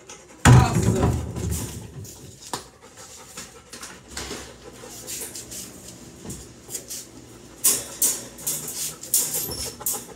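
A dog panting inside a wire crate, with a loud knock about half a second in and a run of metallic clattering near the end as the crate's wire door is opened and the dog climbs out.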